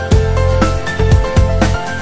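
Background music: a steady beat over bass and short melodic notes.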